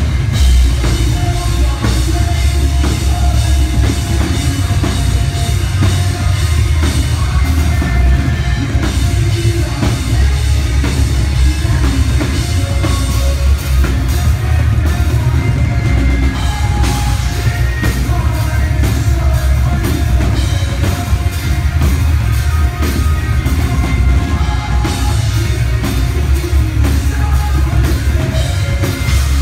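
Metal band playing live at full volume: drum kit, electric guitars and bass, with a singer's vocals over the top.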